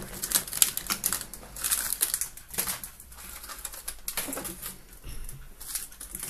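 A spoon stirring cake mix in a stainless steel mixing bowl, with irregular scraping and clicking against the metal bowl.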